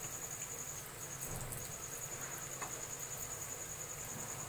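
Onion pakoras sizzling steadily as they deep-fry in hot oil, on their first light fry, with faint crackles. A steady high-pitched tone, like an insect's trill, runs under it, breaking off briefly about a second in.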